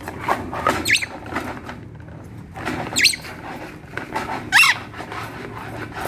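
A rainbow lorikeet gives three short, shrill screeches about a second and a half to two seconds apart, the last the loudest, amid scattered knocks and clatter. The bird is agitated and raging.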